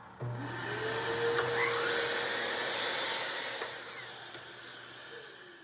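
Electric power tool motor switched on, spinning up to a steady whine within about a second, running for a few seconds with a louder hiss midway, then winding down near the end.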